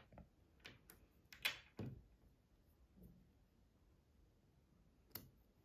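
Faint clicks and taps of small plastic toy pieces being handled and set down on a hard tabletop, several in the first two seconds with the loudest about one and a half seconds in, and one more near the end.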